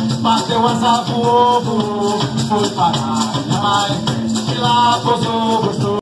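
Live carimbó music: a lead voice singing over a quick, steady beat of maracas and drums.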